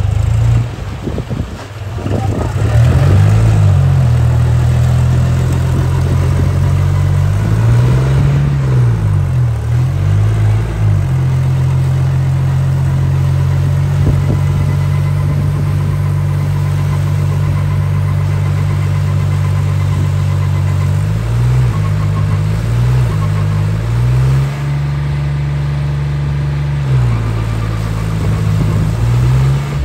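John Deere tractor's diesel engine held at high revs while its rear wheels spin in deep, flooded mud, the engine note dipping and rising again a few times, around two seconds in, near ten seconds and after twenty seconds.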